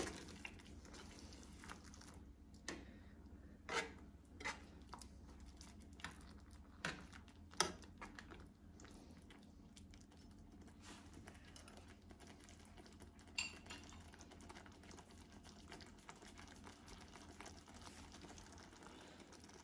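Metal spoon stirring thick mushroom cream sauce in a frying pan: soft scraping with scattered light clinks of the spoon against the pan, mostly in the first half, over a faint steady low hum.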